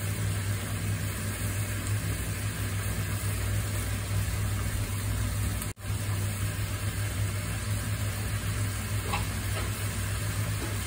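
Tomato-and-greens masala sizzling in a nonstick pan on the stove, over a steady low hum. The sound cuts out for an instant a little past halfway.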